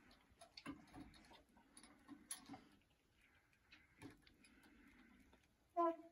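Faint scattered clicks and taps of a knife and a metal chain hook being handled as a gray squirrel carcass is hung up for skinning. Near the end comes one short, loud pitched sound.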